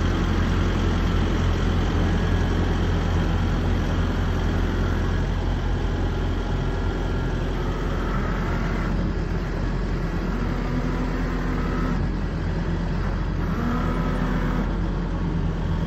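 SANY SY135C excavator's diesel engine running steadily, with a few brief higher whines from the hydraulics as the Rototilt R4 tiltrotator turns and tilts the bucket, about halfway through and again near the end.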